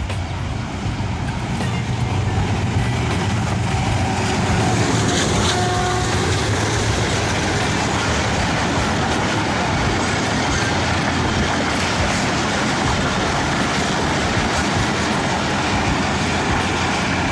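Express passenger train running through a station without stopping, its coaches passing close by. A steady rumble and clatter of wheels on the track, growing louder over the first two seconds and then holding.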